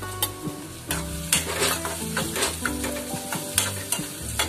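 A steel spoon stirs and scrapes chopped onion and chilli powder around a metal kadhai, with the masala sizzling in hot oil. The scrapes come in short strokes every half second or so over the steady frying hiss.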